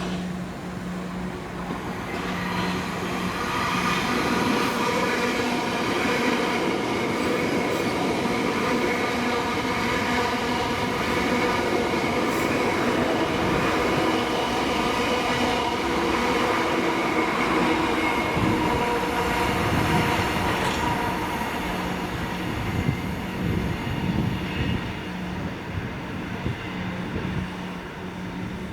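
Electric multiple-unit train passing, building over the first few seconds to a steady whine with several high squealing tones from the wheels. It fades after about twenty seconds, with wheels clicking over rail joints near the end. A steady low hum runs underneath.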